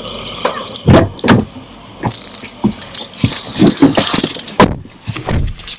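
Inside a car: a string of knocks and rattles, with a stretch of rustling hiss about two seconds in that lasts until about five seconds.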